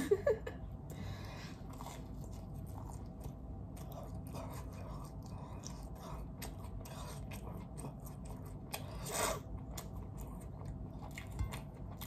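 A person chewing a mouthful of pepperoni pizza close to the microphone: soft, irregular mouth clicks and smacks, with one short louder sound about nine seconds in.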